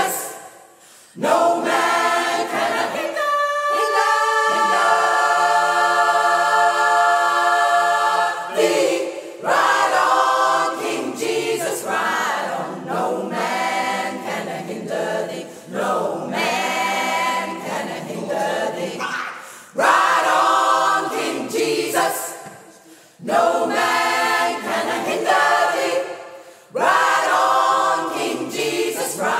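Gospel choir of mixed voices singing a cappella, in phrases with brief breaks between them. About four seconds in they hold one long chord for some four seconds before moving on.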